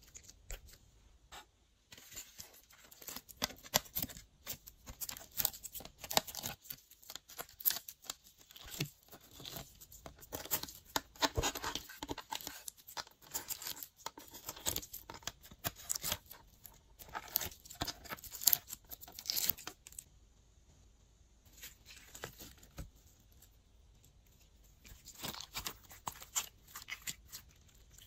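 Glossy slime being worked by hand, giving rapid sticky clicks, pops and crackles. The crackling starts about two seconds in, pauses about two-thirds of the way through, then comes back briefly near the end.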